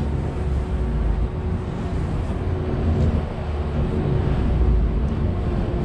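Passenger ferry under way: steady low engine drone with a faint even hum, mixed with wind and the rush of water past the hull.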